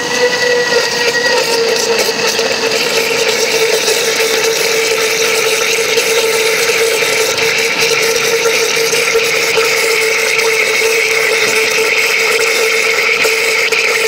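Electric blender running steadily, its motor giving a constant whine as it churns a fruit drink in a glass jar.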